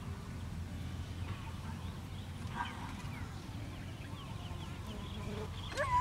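Village dogs: a short bark or yelp about two and a half seconds in, then near the end a louder, longer call that rises and then falls in pitch, over a steady low rumble.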